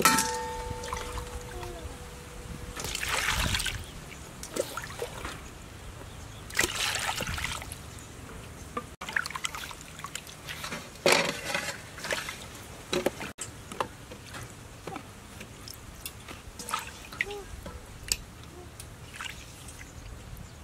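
Peeled apple pieces and grapes tipped into a stainless steel bowl, landing with a sharp clunk that leaves the bowl ringing briefly. Then water splashing and dribbling in the bowl in irregular bursts as the fruit is rinsed and lifted out by hand.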